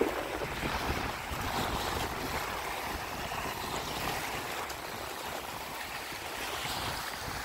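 Small sea waves breaking and washing up a sandy beach: a steady rush of surf.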